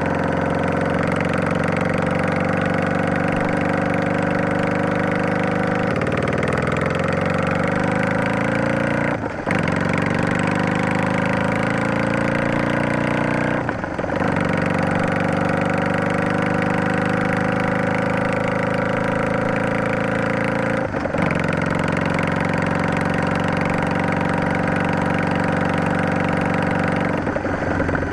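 Yamaha DragStar 400's V-twin exhaust through an aftermarket vent muffler with inner silencer, on the move. The engine note rises as it pulls through the gears, with short breaks for shifts about nine and fourteen seconds in. It then runs steadily, with a brief lift about three-quarters through and a change of pitch near the end.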